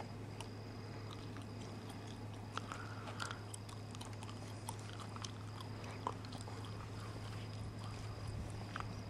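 Steady low hum with scattered faint clicks and small crunches, as of footsteps on gritty pavement and handling of a handheld camcorder.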